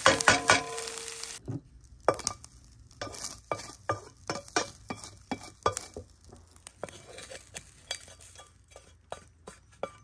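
Vegetables sizzling in a metal pan while a spatula stirs them, with a few clinks against the pan; the sizzle stops about a second and a half in. Then a run of short scrapes and taps of the spatula against the pan as the food is scraped out onto a plate.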